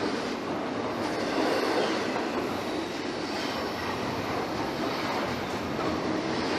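Norfolk Southern freight train rolling past, a steady noise of wheels on rail.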